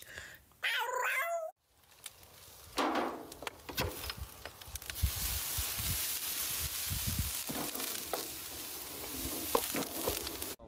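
A short wavering cry about a second in. Then meat sizzling over hot coals on a grill, a dense steady hiss with scattered small clicks and pops.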